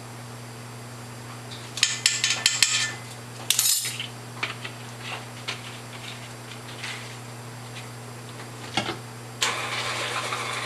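Metal kitchen utensils clinking against a stainless steel mixing bowl: a cluster of sharp clinks about two seconds in and a brief clatter just after, then lighter taps. Near the end a stand mixer switches on and runs steadily.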